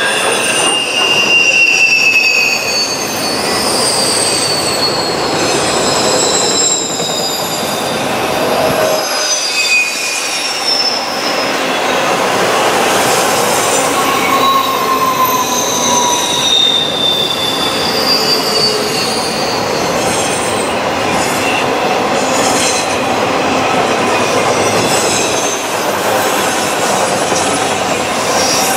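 Freight train of autorack cars rolling past with a steady rumble of wheels on rail. Wheel squeal comes and goes over it in high, wavering, sliding tones.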